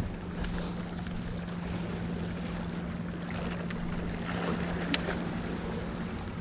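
Wind on the microphone and sea noise, with a steady low hum throughout and a few faint ticks.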